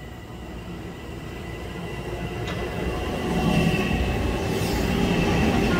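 Metro-North M7A electric multiple-unit commuter train approaching and running past along the platform, its wheel and rail noise growing steadily louder, with a steady high whine over it.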